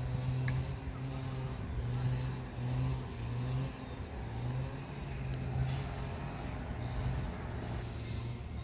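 A low engine drone, a steady hum that swells and fades every second or so over a rumble.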